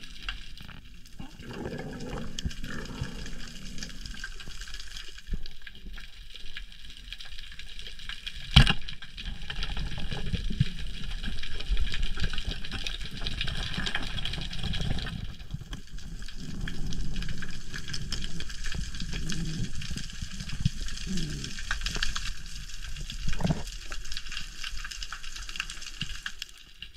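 Muffled underwater sound picked up by a camera in its waterproof housing: water moving against the housing, with a steady faint crackle. One sharp click stands out about a third of the way in.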